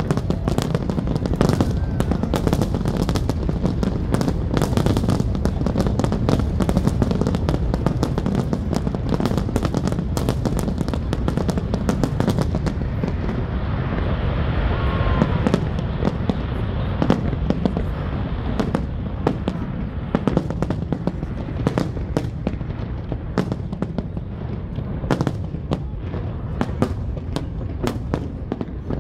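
Fireworks display: many firework shells bursting in quick succession, one crack over another, with a steady low rumble underneath.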